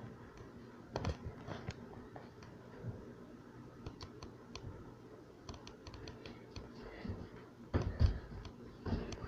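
Faint, scattered light clicks and taps in a small room, with a louder knock or thump about eight seconds in.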